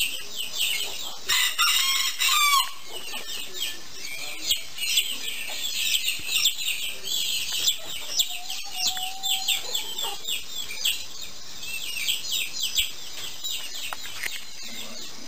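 Many birds chirping in quick, short calls throughout, with one longer, louder call from a domestic fowl about a second and a half in.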